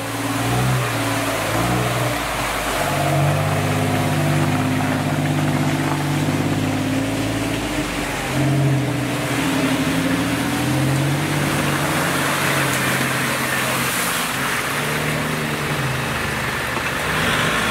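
Off-road 4x4's engine running under varying throttle, its pitch rising and falling in steps as it revs and eases off.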